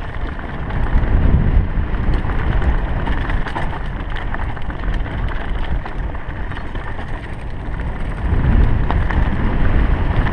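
Mountain bike descending a rocky dirt trail: a steady low rumble of wind on the handlebar-mounted camera's microphone, with tyres crunching over dirt and stones and scattered clicks and rattles from the bike.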